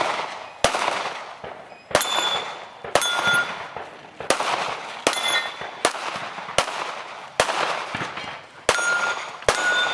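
A string of about ten gunshots, fired at an uneven pace of roughly one a second. Several are followed by the brief ring of steel targets being hit.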